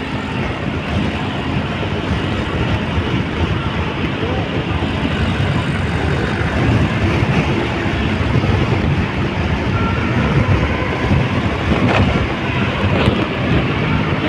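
Steady vehicle running with road and wind noise, heaviest in the low rumble.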